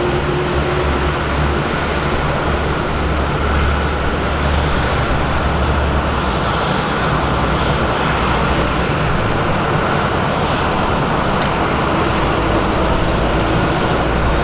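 Jet aircraft engines running loud and steady, a continuous rushing noise with no breaks.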